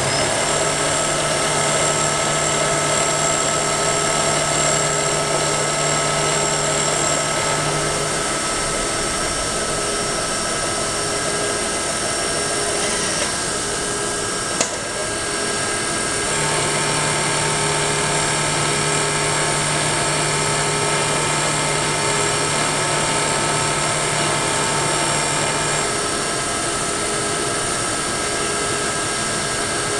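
Vertical milling machine running steadily, its end mill cutting a part in the vise down to size. A second, lower hum joins for the first eight seconds and again from about sixteen to twenty-six seconds, and there is one sharp click about halfway through.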